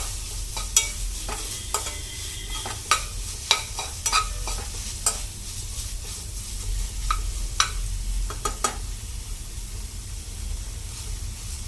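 A tomato, onion, garlic and spice mixture sizzling in oil in a kadai as it is stirred, with frequent sharp clicks and scrapes of the stirring utensil against the pan.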